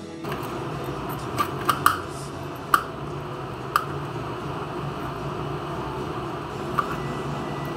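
Knife and fork cutting through crispy breaded fried eggplant on a plate: a handful of sharp clicks between about one and a half and four seconds in, and one more near the end, over a steady low background hum.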